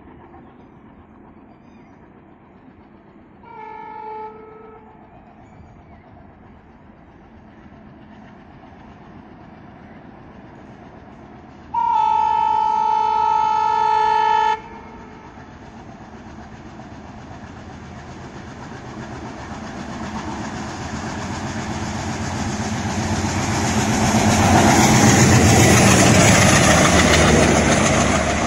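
Twin ALCO diesel locomotives hauling an express train: a short horn blast about four seconds in, then a long loud horn blast about twelve seconds in. After that the engines and wheels grow steadily louder as the train approaches at speed, loudest near the end as the locomotives pass.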